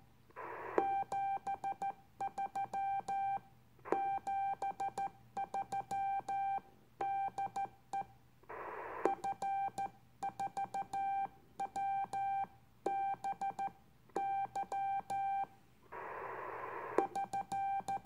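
Morse code (CW) sent on an Icom IC-251E transceiver and heard as its steady keyed tone, dots and dashes in groups spelling "RR TKS 73 73 DE F4WBY SK", the sign-off that ends a contact. A few short bursts of hiss fall between the groups.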